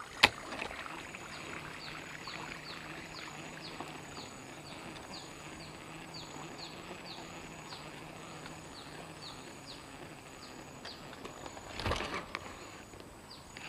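Evening outdoor ambience: short, high, falling chirps from small animals repeat about twice a second, with a higher buzzing pulse about every second and a half, over a soft steady hiss. A single sharp click comes just after the start, and a burst of rustling from movement comes near the end.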